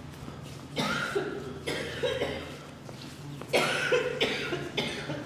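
A person coughing repeatedly, in three fits, the loudest starting about three and a half seconds in.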